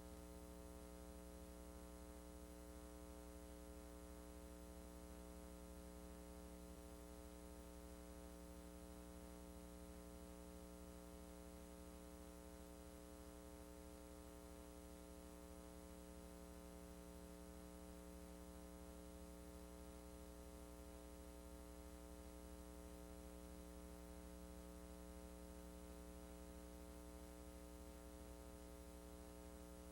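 Near silence with a faint, steady electrical hum: a VHS transfer with no recorded audio, carrying only mains hum.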